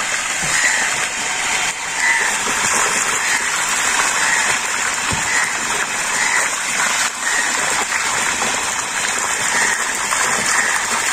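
Water from a hose pouring steadily into a water-filled concrete basin, splashing continuously on the surface.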